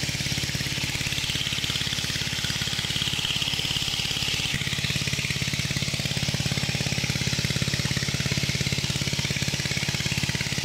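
Small engine running steadily with a fast, even beat and a high hiss over it: the motor pump draining the pond.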